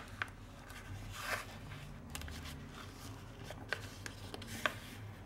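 Paper being folded and creased by hand: soft rustling and rubbing, with scattered small ticks and a brief louder rustle about a second in.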